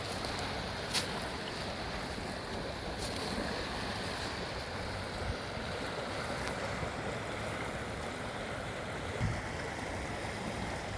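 Floodwater rushing steadily, with a faint click about a second in.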